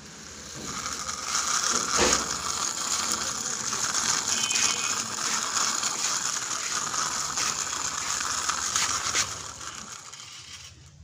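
Small plastic toy boat on wheels pushed by hand along a rough concrete wall: a steady grinding of its wheels on the concrete, with a sharp knock about two seconds in, dying away near the end.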